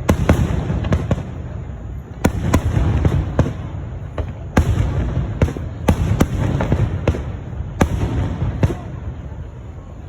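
Fireworks display: a run of sharp aerial shell bursts and reports in irregular clusters every second or so, over a continuous low rumble and crackle.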